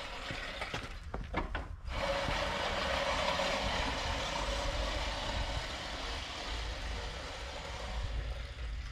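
Hand-pushed reel lawn mower cutting grass: a few knocks as it gets going, then from about two seconds in a steady whirr of the spinning blades.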